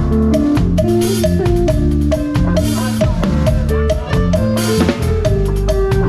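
Live band playing a cha-cha: a drum kit keeps a steady beat with cymbal crashes about every second and a half, over a moving bass line.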